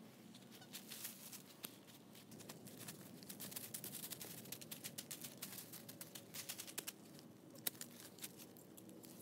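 Dry fallen leaves rustling and crackling as they are kicked over a smoking fire pit: a faint, irregular run of small crackles.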